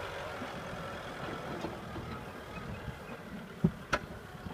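Farm tractor's diesel engine running steadily as it tows a heavily loaded trailer along a muddy track. Two sharp knocks come close together near the end.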